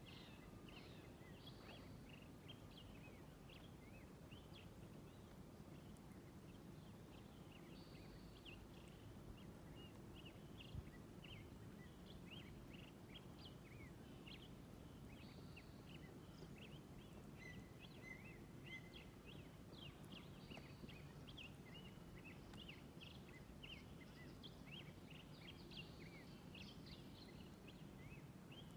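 Faint chorus of small birds chirping and twittering, many short calls overlapping, over a steady low background rumble. One brief click about a third of the way in.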